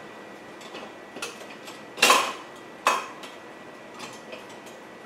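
Kitchen utensils and dishes clattering as a spatula is fetched from the counter, with two sharp clanks about two and three seconds in and small clinks between.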